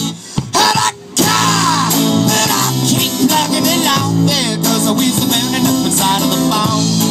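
Live rock band playing, guitar to the fore. The band drops out briefly about half a second in, then comes back in full about a second in.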